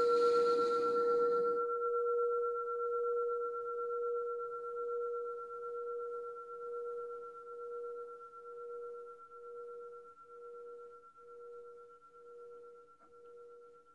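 Meditation bell ringing on as it fades, two steady tones with the lower one pulsing about once a second as it dies away. It is the bell that opens a period of silent practice.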